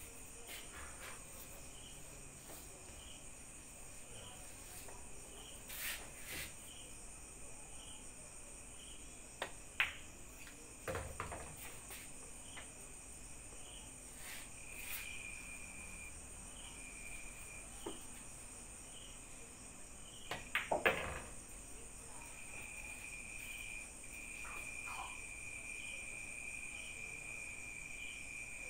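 Faint, steady chirping of crickets with a regular pulse, plus a few scattered short knocks and clicks, the strongest about ten seconds in and again about two-thirds of the way through.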